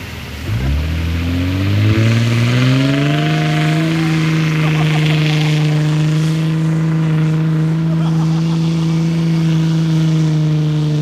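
Diesel pickup truck engine revving up over about three seconds, then held steady at high revs under full load while pulling against another truck on a tow strap.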